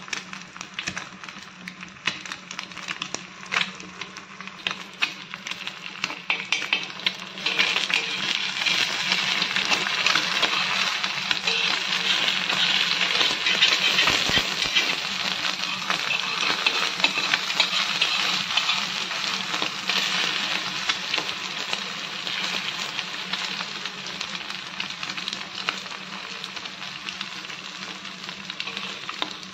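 An egg sizzling as it fries on a flat iron tawa, with a metal spatula scraping and tapping on the griddle as the egg sticks to it. The sizzle grows louder about seven seconds in.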